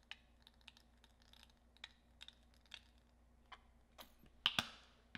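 Faint, scattered clicks and crackles of a plastic squeeze bottle of aloe vera gel being squeezed and handled over a glass bowl, with two sharper clicks near the end.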